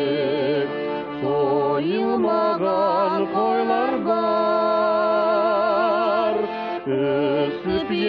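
A slow folk-style song: a single voice sings long held, wavering notes that glide between pitches, with a short break about seven seconds in.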